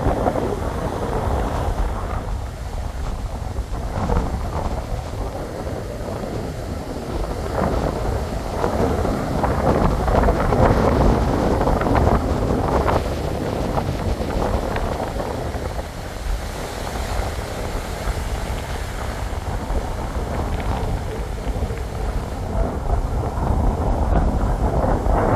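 Wind buffeting the microphone in gusts over the steady wash of surf breaking on the beach.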